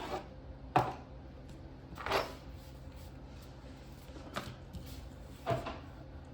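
Flashcards being handled on a table: a few separate sharp taps and knocks with some rustling between them.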